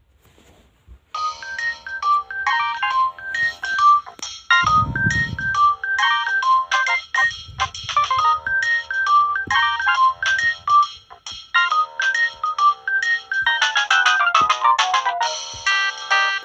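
Nokia 2680 slide's built-in polyphonic ringtone playing, a synthesized melody of short notes starting about a second in, with a quick cascade of falling notes near the end. A dull low bump sounds about five seconds in.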